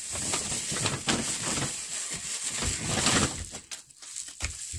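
Rummaging in a paper grocery bag: a dense rustling and crinkling of paper and packaging for about three and a half seconds, then softer handling of plastic-wrapped packages.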